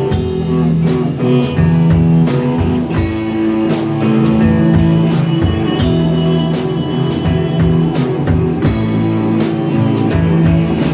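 Rock band playing an instrumental passage: electric guitar and bass over a drum kit with regular cymbal hits.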